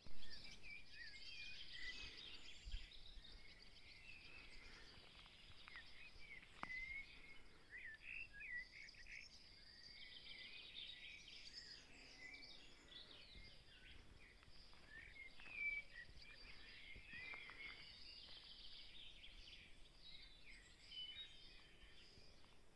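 Faint background of small songbirds singing and chirping, many short overlapping notes and trills, with a couple of soft knocks.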